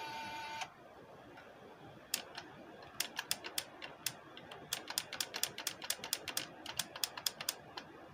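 Sony Xplod car stereo head unit's front-panel buttons and volume control being clicked, about twenty sharp, irregular clicks over several seconds, as the controls are tested for a reported keypad fault. A short steady tone sounds at the very start.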